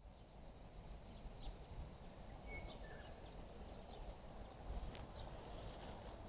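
Faint outdoor background with a steady low rumble, over which birds give scattered short, high chirps and whistles. There is a single sharp click about five seconds in.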